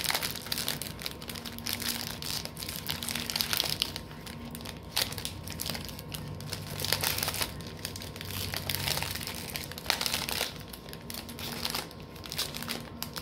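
Plastic wrapping crinkling and rustling in hands in irregular bursts as baked goods are wrapped up.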